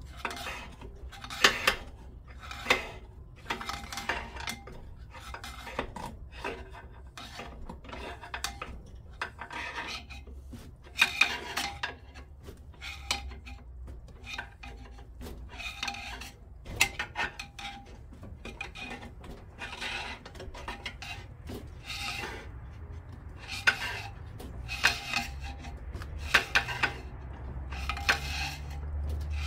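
Metal engine parts and hand tools clinking, knocking and scraping against each other in irregular strokes, some with a brief metallic ring.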